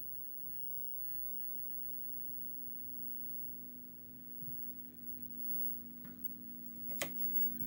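Low, steady multi-tone mains hum from a vintage Astor T25X television running on reduced mains voltage during its first power-up, growing slowly louder as the supply is turned up. A single sharp click about seven seconds in.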